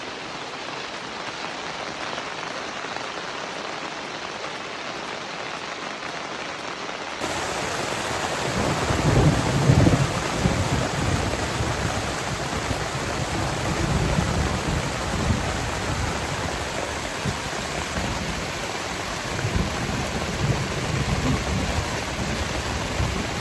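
Heavy rain pouring down in a thunderstorm, a dense steady hiss. About seven seconds in it turns abruptly louder and fuller, with a low rumbling underneath.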